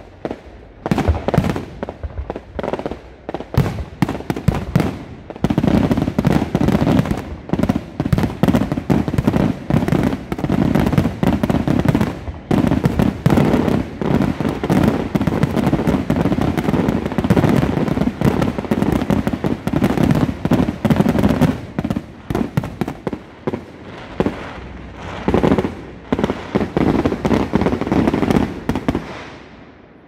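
Fireworks finale: a dense barrage of aerial shells bursting, many bangs a second almost without a break, thinning out and dying away in the last few seconds.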